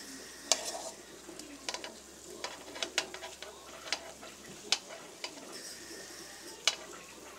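Oil sizzling steadily in a metal wok as strips of food deep-fry, with about ten sharp metal clicks at irregular intervals as tongs turn the strips and tap against the pan.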